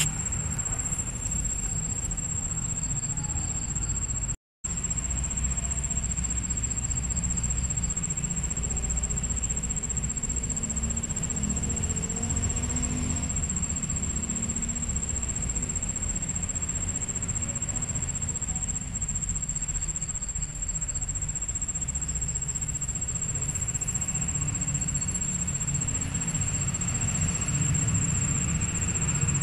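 A steady high-pitched whine over a low rumble, cutting out for an instant about four and a half seconds in.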